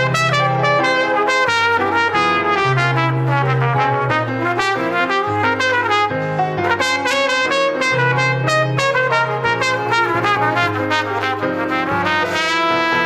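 Instrumental break in a salsa song: a brass section plays over a moving bass line, between sung verses.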